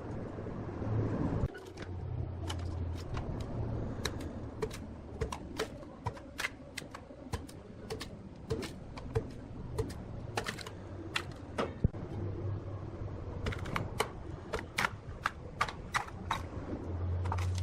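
Rapid, irregular sharp clicks and taps, several a second, over a low hum that swells and fades.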